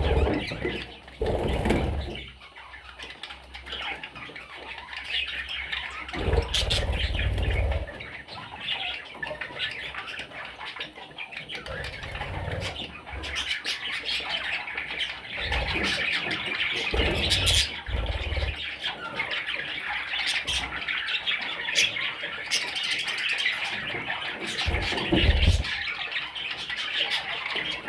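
A flock of budgerigars chattering and warbling without a break, with a few short low thumps along the way.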